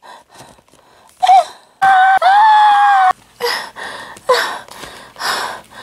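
A person's high-pitched scream held for about a second, after a short cry, then a series of gasping, wheezing breaths about once a second.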